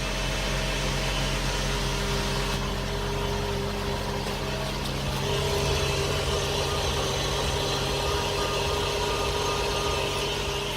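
BMW F10 535i running steadily at idle, a constant hum with a tone that grows stronger about halfway through. This is the weird noise the owner is recording from the car, its cause not yet known.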